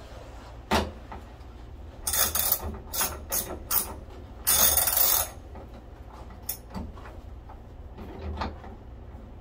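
Ratchet wrench with a half-inch socket clicking as it tightens a cable terminal nut. It goes in several short bursts, then a longer run near the middle, with a few single clicks either side.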